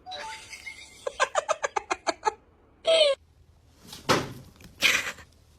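A small animal, most likely a pet: a quick run of about ten short clicking chirps, then a short pitched call that falls in pitch, then two short noisy bursts.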